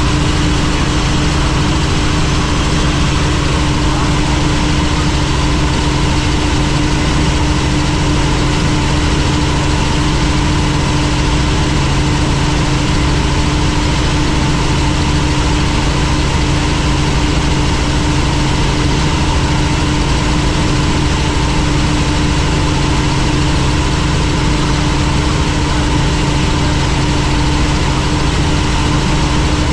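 Helicopter in flight: a steady, unchanging drone of engine and rotor, with a few fixed hum tones over an even rushing noise.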